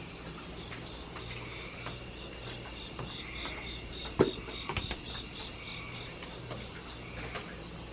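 Insects chirping steadily in the night air, with a faster pulsing trill joining about three seconds in. A single sharp knock comes just past the middle, followed by a few lighter knocks.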